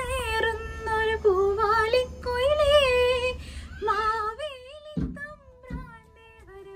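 A woman singing solo without accompaniment, a slow melody of long held notes that waver and glide in pitch, growing softer in the last couple of seconds.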